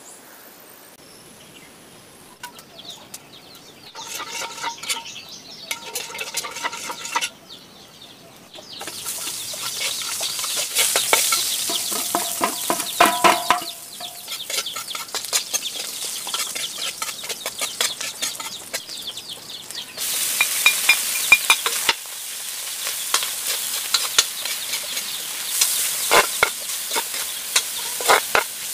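Native chicken pieces sizzling as they fry in a pan, stirred with a spatula that clicks and scrapes against it; the frying starts about a third of the way in. Chickens cluck in the background.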